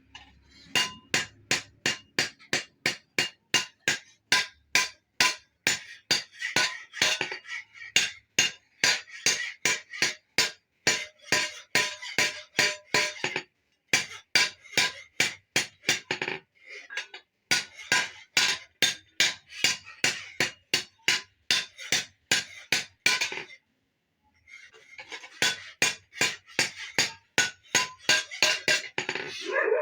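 Blacksmith's hammer blows on metal at the anvil in a steady rhythm of about three strikes a second, each with a short metallic ring. The hammering stops briefly three times and then resumes.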